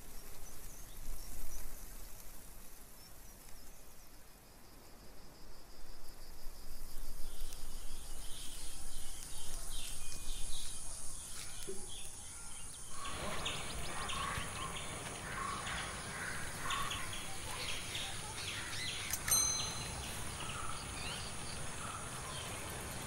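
Outdoor ambience of a coconut grove: birds chirping over a steady high insect drone, growing fuller about halfway through. A short bright ring sounds a few seconds before the end.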